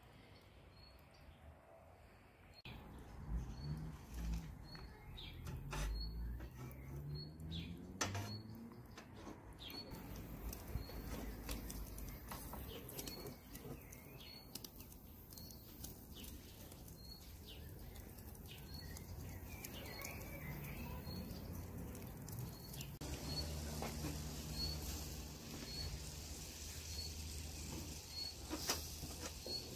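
Skewered beef liver and lamb fat-tail sizzling and crackling over hot charcoal in a mangal, the sizzle filling in after the first few seconds, with a few knocks of skewers earlier on. A bird repeats a short high chirp about once a second.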